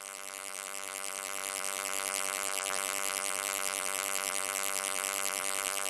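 A steady buzzing drone with many overtones, growing louder over the first two seconds and then holding.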